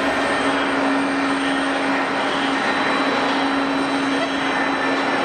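Jet airliner engines running steadily, a constant wide roar with a low steady hum underneath.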